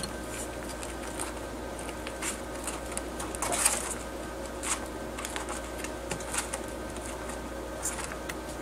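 Sugar gliders chewing pomegranate flowers and scrabbling in the petals: scattered soft clicks and rustles, busiest a little past three seconds in, over a steady background hum.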